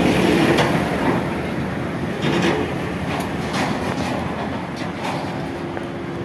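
Long steel reinforcing bars clanking and scraping against each other as they are pulled by hand out of a loaded van, with several sharp metallic knocks at irregular intervals.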